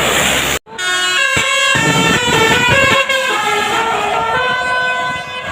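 Basuri telolet bus horn playing a melody: a run of loud, stepped musical notes, each held a fraction of a second. It comes in just under a second in, after a brief rush of noise that cuts off suddenly.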